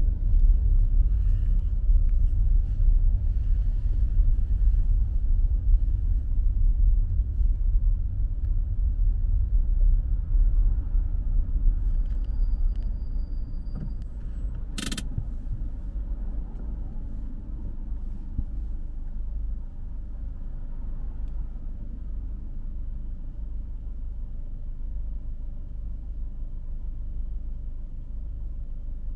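Car driving along a road: a deep, steady rumble of road and engine noise that drops in level about halfway through, with a single sharp click about 15 seconds in.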